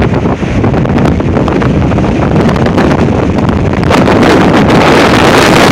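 Gale-force wind buffeting the microphone in a loud, steady roar that strengthens into a harder gust about four seconds in.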